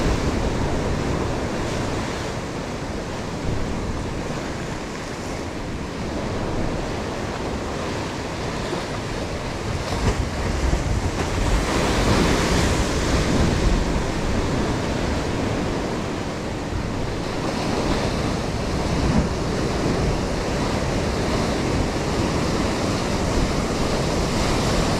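Sea surf washing against a rocky shore, with wind on the microphone. The wash swells louder for a couple of seconds about halfway through.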